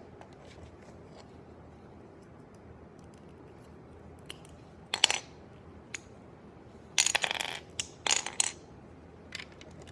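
Plastic Lego bricks clicking and clattering as they are handled and pressed together: one sharp click about halfway through, then a quick flurry of clicks a couple of seconds later.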